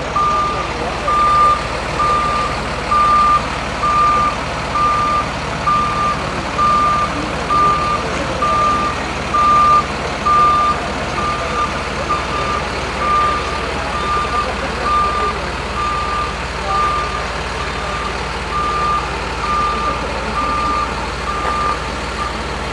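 Flatbed tow truck's backup alarm beeping steadily about once a second, one pitch, over the truck's engine running, and stopping shortly before the end.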